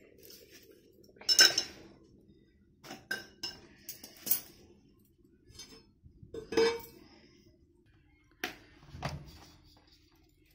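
Steel pots and plates clinking and knocking as they are handled and set down: a handful of separate sharp clanks, the loudest about a second and a half in and again past the middle.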